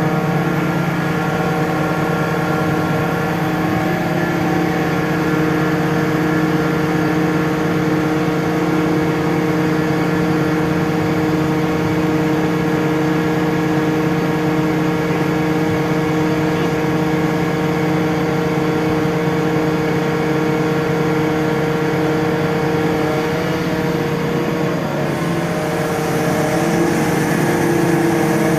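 Mobile crane's diesel engine running at a steady speed, a continuous even engine note.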